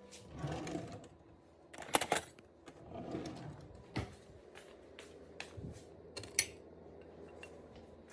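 Scattered clicks, knocks and rustling of objects being handled in a small room, with the sharpest knocks about two seconds in.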